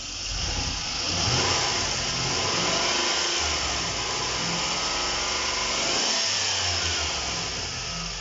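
GMC Savana van engine revved up and let back down twice, running smoothly with no misfire now that the low voltage to the injectors has been cured.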